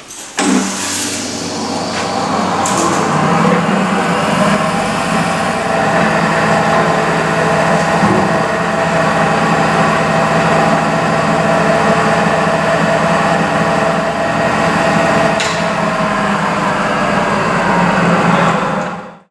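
Union 12-inch double-ended grinder running: its electric motor and wheels give a loud, steady hum and whine that starts suddenly just after the start and cuts off suddenly near the end.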